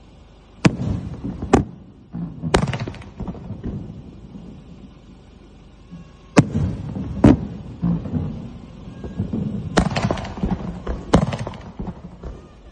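Fireworks going off: about seven sharp bangs at uneven intervals, each trailing off in crackle and echo.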